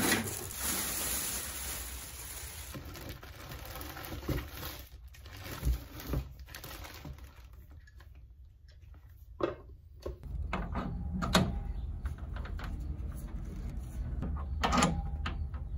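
Plastic wrapping rustles as a TIG welder and its bagged accessories are unpacked, with scattered clicks and knocks of parts being handled and fitted. The rustling is densest in the first few seconds.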